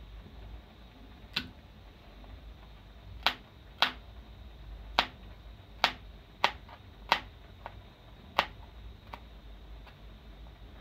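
Kitchen knife striking a plastic cutting board while cutting garlic: about ten sharp, separate knocks at an uneven pace.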